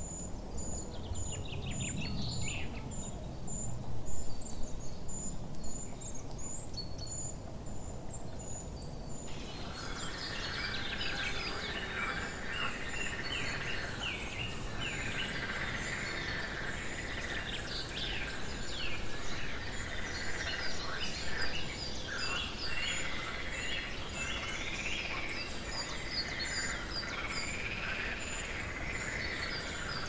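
A chorus of many birds chirping and calling over a steady low background rumble, with a high tick repeating about twice a second. The chorus becomes much fuller and denser about nine seconds in.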